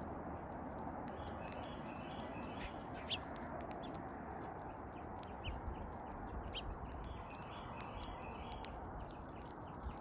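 Small birds at a seed feeder: two short runs of quick high chirps, and sharp clicks of beaks pecking seed on the platform, the loudest about three seconds in. A steady background rush of outdoor noise runs underneath.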